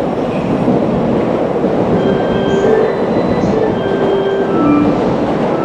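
Steady rumble and hum of a station platform with the E233-series electric train standing at it. From about two seconds in, a platform departure melody of short held chime notes plays over the noise.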